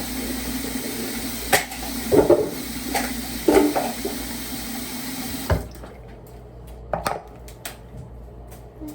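Water running steadily in a small bathroom, stopping abruptly about five and a half seconds in; a few sharp clicks and knocks sound over it and after it.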